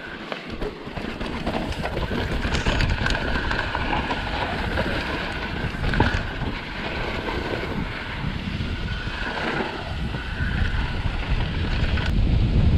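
Specialized Demo downhill mountain bike descending a loose pumice dirt trail at speed: wind buffeting the microphone over the hiss and crunch of the tyres and the rattle of the bike, with a couple of sharp knocks over rough ground, one about halfway through and one near the end.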